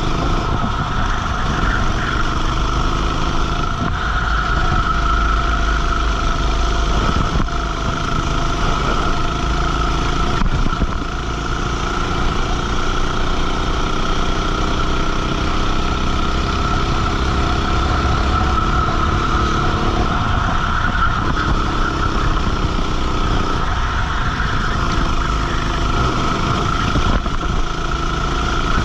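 Go-kart engine heard from on board at racing speed, its pitch climbing slowly through a long acceleration around the middle and dropping off twice near the end as the driver lifts for corners.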